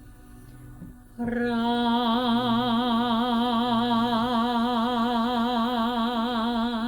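A woman's voice toning the mantra "Ram" as one long held note with a wavering vibrato, starting about a second in and stopping at the very end, over a faint steady drone at the same pitch.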